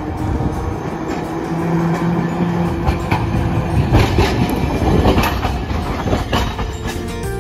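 A Hiroden 1900 series streetcar passing close by on a curve, its steel wheels clattering over the rail joints and crossings of the junction. It is loudest about four seconds in as it goes past.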